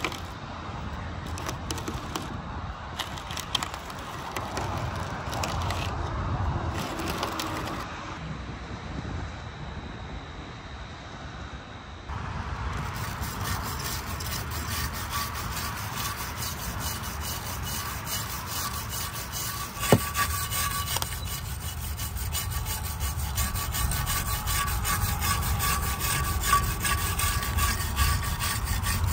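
Steady rasping and rubbing of abrasive hand work, growing louder and brighter about 12 seconds in, with one sharp knock about 20 seconds in.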